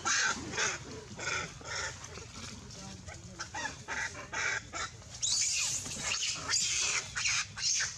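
Macaques calling in short, harsh, repeated squeals, about two or three a second, growing denser and louder about five seconds in.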